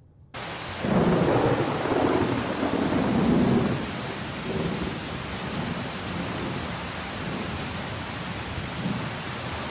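Rain falling with a rumble of thunder. It starts suddenly, the rumble swells about a second in and fades around four seconds, leaving a steady hiss of rain.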